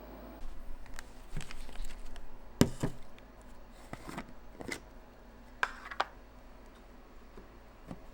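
Irregular clicks and knocks of objects being handled, the sharpest about two and a half seconds in and two more close together near six seconds in, over a faint steady room hum.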